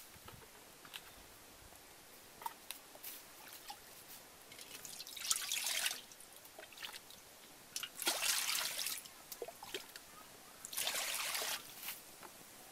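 Water being poured into a wok in three pours, each about a second long and a few seconds apart, with a few small clicks before the first.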